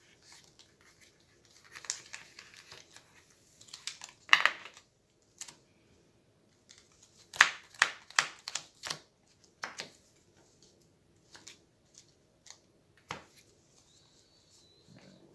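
Hero Realms playing cards handled, gathered and shuffled on a tabletop: papery rustles and slides, with a quick run of sharp card snaps about halfway through.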